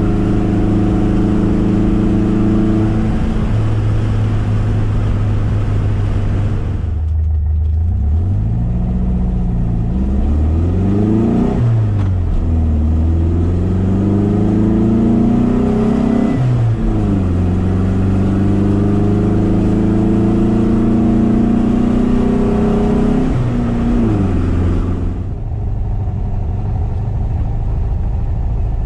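Air-cooled VW SP2 flat-four engine with dual 40 carburettors and a stainless exhaust, heard from inside the cabin while driving. The revs fall early on, then climb in rising pulls broken by sudden drops at gear changes, hold steady at a cruise, and settle to a lower, steady note near the end.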